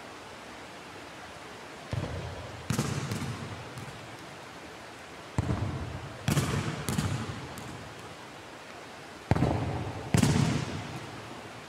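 A futsal ball is kicked three times in a large echoing sports hall. Each kick is a sharp thud followed less than a second later by a second thud as the ball strikes again, and every impact rings on in the hall's reverberation.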